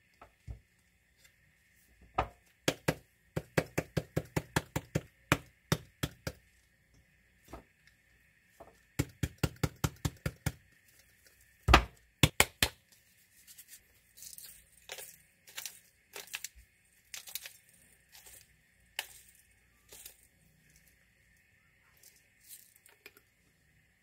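A plastic shaker jar of Korean red pepper powder shaken over a glass measuring cup, giving two quick runs of sharp plastic clicks at about five a second, then one hard knock. After that comes a series of softer hissing squirts and sputters as a sauce bottle is squeezed upside down over the cup.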